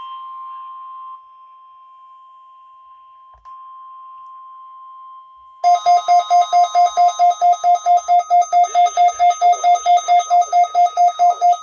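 NOAA Weather Radio's 1050 Hz warning alarm tone, a steady high tone that drops in loudness about a second in and comes partly back a few seconds later. About six seconds in, a weather alert receiver's own alarm sets off, triggered by the test: a loud, rapid beeping about five times a second that runs on over the fading tone.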